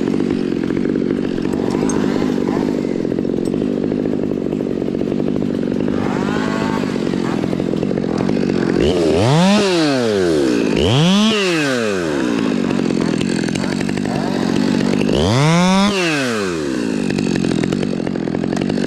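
Two-stroke chainsaw running at a steady low speed, then revved up and let back down three times in the second half, each rev a rising then falling whine.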